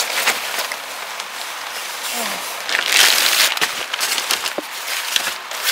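Steady rain patter with the rustle and crackle of a waterproof work suit being put on. The rustle is loudest about three seconds in.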